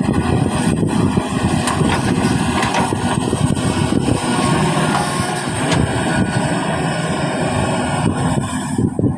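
Kobelco excavator's diesel engine running steadily, with a few brief knocks.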